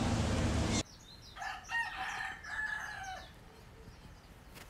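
A steady rushing noise cuts off abruptly about a second in, then a rooster crows once, a stepped call about two seconds long, with small birds chirping faintly.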